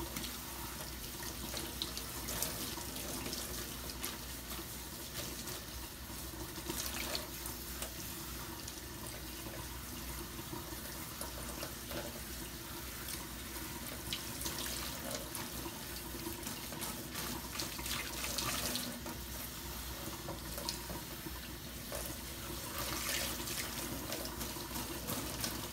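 Kitchen faucet running steadily into a stainless steel sink, the stream splashing over a child's head as shampoo is rinsed out of his hair. It grows briefly louder now and then.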